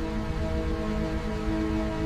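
Background music: sustained, brooding tones held over a low rumble.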